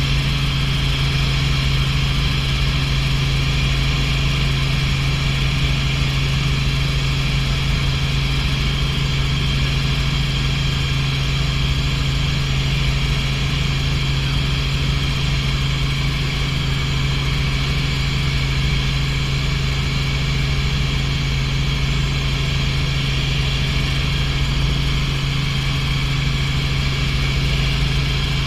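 Helicopter in steady cruise flight heard from inside the cockpit: a loud, unchanging drone of engine and rotor with a strong low hum.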